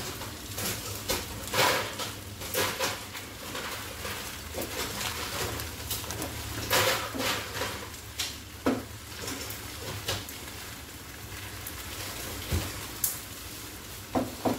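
Spaghetti aglio olio with mushrooms stir-frying in a frying pan: a wooden spatula scrapes and knocks against the pan at irregular moments over a low sizzle.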